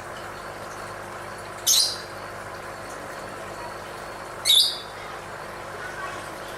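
Lovebird giving two short, shrill calls about three seconds apart, over steady background noise.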